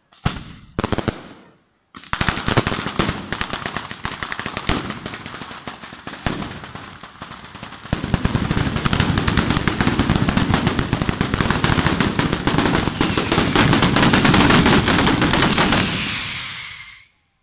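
A ground-laid firecracker battery (Italian 'batteria') going off. It starts with a few separate bangs, then about two seconds in becomes a rapid, continuous string of firecracker cracks. The string grows denser and louder about eight seconds in and stops abruptly near the end.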